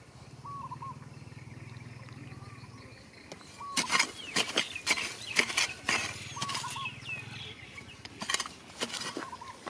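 A small metal hand hoe chopping and scraping into dry, stony soil, a quick run of sharp strikes and scrapes starting about four seconds in. Before that only a faint low hum, with brief chirps now and then.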